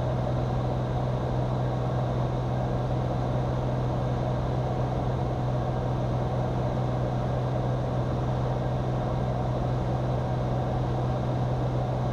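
Cirrus SR22's six-cylinder piston engine and propeller droning steadily in flight, heard inside the cabin.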